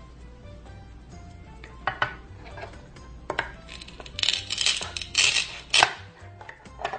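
Toy food being cut: a toy knife clicks and taps on a cutting board, then about four to six seconds in come several short rasping rips as the velcro-joined halves of a toy strawberry are pulled apart. Quiet background music underneath.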